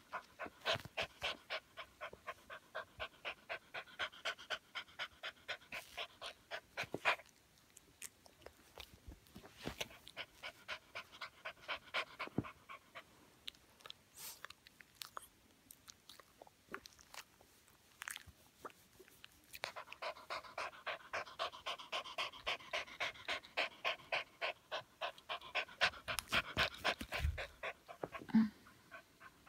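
Small dog panting fast and hard, about three breaths a second, in long bouts with a quieter stretch in the middle: panting from a pain attack caused by hydronephrosis.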